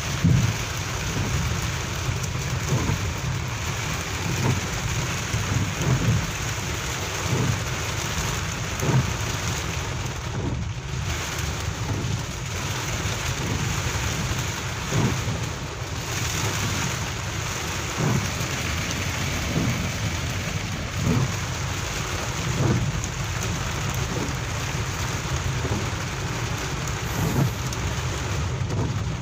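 Heavy rain pouring steadily, with a continuous low rumble and louder thuds every second or two.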